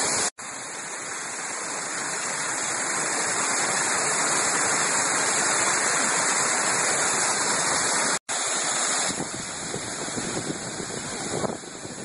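Waterfall rushing: a steady, dense hiss of falling water, cut off twice for a split second, about a third of a second in and about eight seconds in, and a little softer over the last few seconds.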